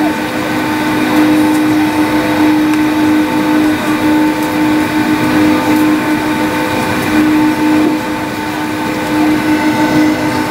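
Cabin noise inside a Boeing 757-204 taxiing, heard from over the wing. Its Rolls-Royce RB211 engines run at taxi power: a steady, loud rushing hum with several held tones, the lowest swelling and fading slightly.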